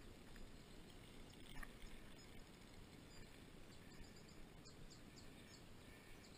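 Near silence: faint outdoor background noise, with a short run of faint high bird chirps starting about three seconds in and a couple of faint clicks.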